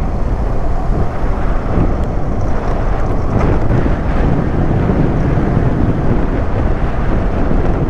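Wind rushing steadily over a GoPro's microphone on a moving motorcycle, mixed with engine and road noise.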